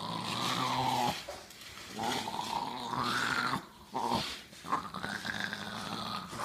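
Small dog growling in a string of low rumbles, some long and some short, with brief pauses between them. It is a warning growl, guarding its bone from a reaching hand.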